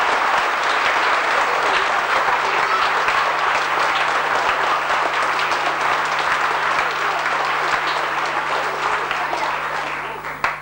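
Audience applauding steadily with many hands clapping, tailing off about nine seconds in and then cutting off abruptly.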